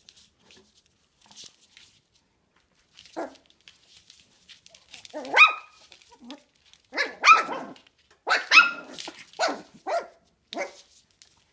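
Puppies barking in play: a string of about ten short, high yaps, starting about three seconds in, some coming in quick pairs.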